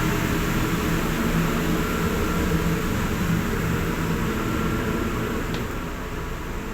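RORO ferry's machinery running, a steady drone with a low hum, heard aboard. A light click comes about five and a half seconds in, and the drone eases a little near the end.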